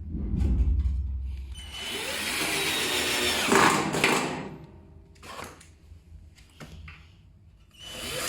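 Power drill running in one burst of about two seconds, followed by scattered knocks and clicks.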